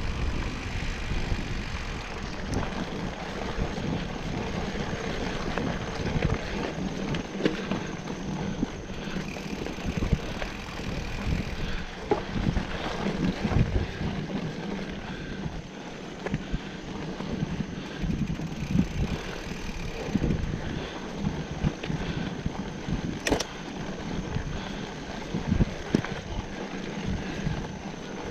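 Mountain bike being ridden on a dirt trail: a steady rumble of tyres and wind on the microphone, with frequent irregular knocks and rattles from the bike over bumps.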